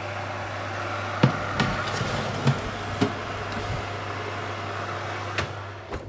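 Electric oven running with a steady whirring noise over a low hum, with several sharp knocks and clicks through it; the whirring drops away near the end.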